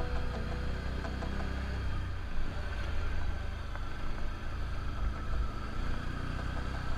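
Can-Am Outlander ATV engine running steadily at low revs, a low, even rumble with a brief dip about two seconds in.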